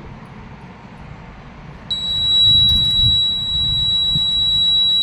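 Electronic buzzer of a flood monitoring system starting about two seconds in and sounding one continuous high-pitched alarm tone.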